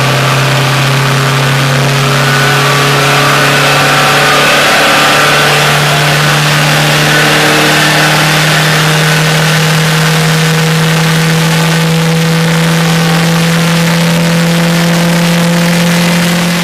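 Volkswagen Golf Mk2 four-cylinder engine held at steady high revs, a loud continuous drone. The pitch climbs a little about five seconds in, then holds.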